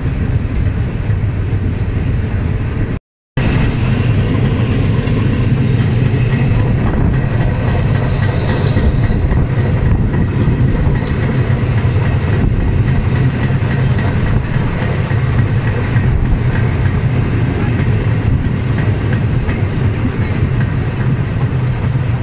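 Steam-hauled train running along the rails, a steady loud rumble heard on board. The sound drops out for a moment about three seconds in, then the rumble carries on unchanged.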